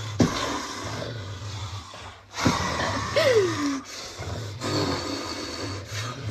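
A man and a dog growling and snarling at each other in rough, breathy bursts, with one short falling cry a little after three seconds.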